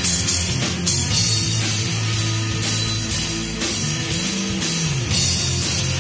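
Live rock power trio playing an instrumental passage: electric guitar, electric bass and drum kit, with cymbals struck in a steady beat. About four seconds in, a low note slides up and back down.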